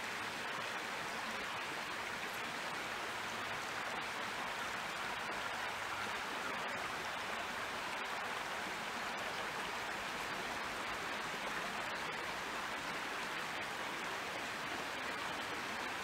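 Steady rush of a creek's running water, an even hiss with no change in level.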